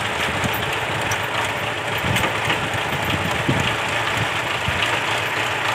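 Farm tractor's diesel engine idling steadily, a low even rumble with a rapid knock.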